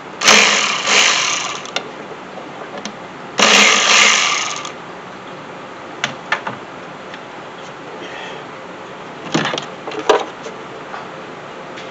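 A power tool running in two bursts of about a second each, backing out the mounting bolts of the MAP sensor. A few short clicks and knocks follow later.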